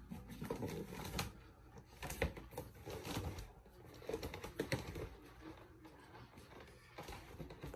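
Irregular light clicks, knocks and rustling from things being handled and rummaged through close to the microphone.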